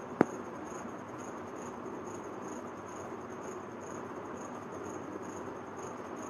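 Faint, high-pitched insect chirping that pulses evenly about two to three times a second over a steady background hiss. A single sharp click sounds about a quarter second in.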